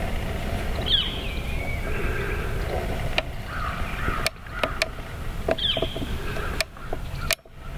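Woodland ambience: a steady low wind rumble on the microphone, a bird call with a falling note about a second in and again past five seconds, and a scatter of sharp clicks and crackles in the second half, where the sound twice cuts out briefly.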